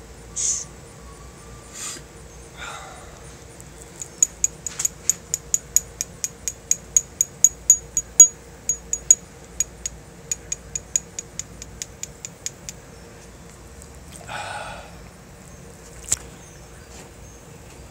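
A small metal tool tapping on the head of a 4-inch steel nail, driving it up into a nostril: a run of sharp metallic clicks, about three or four a second, starting about four seconds in and stopping near thirteen seconds.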